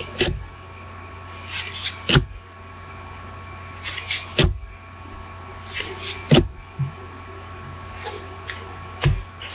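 Hockey trading cards handled one by one: each time, a short papery rustle as a card slides off the stack, then a sharp tap as it is set down. This comes about every two seconds, five times, over a steady low electrical hum.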